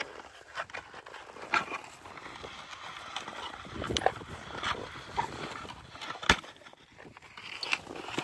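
Two Rottweilers tussling over a wooden stick on packed snow: irregular scuffling and crunching of paws in the snow, with scattered knocks of the stick, the sharpest about six seconds in.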